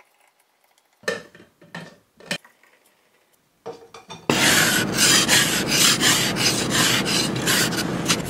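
A few short knocks and clinks from a steel food flask being filled and handled, then, from about four seconds in, an ice scraper rasping frost off the inside of a car windscreen in quick repeated strokes, much the loudest sound.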